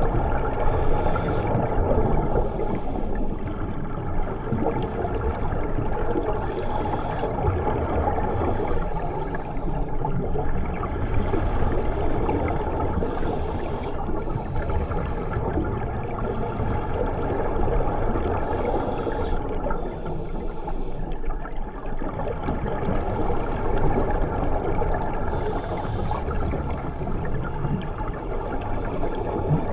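Scuba divers breathing underwater through regulators: short hissing bursts of exhaled bubbles every couple of seconds over a steady underwater rush.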